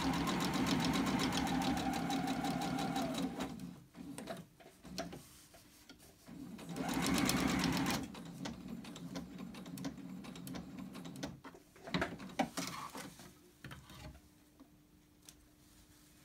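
Electric sewing machine stitching through layered cotton fabric at a steady speed with a rapid, even needle rhythm, reinforcing the shield's top-stitching. It stops after about three and a half seconds, runs again briefly around seven seconds in, then gives way to quieter fabric handling with a few sharp clicks.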